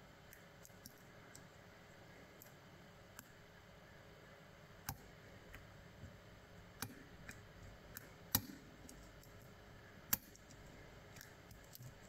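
Faint, irregular metallic clicks and ticks of a hook pick and tension wrench working the pins of a brass lock cylinder during picking, with a few sharper clicks spaced one to two seconds apart.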